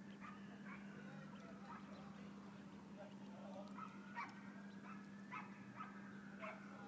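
Ducks calling faintly from the water: a scatter of short calls, some in quick pairs, over a steady low hum.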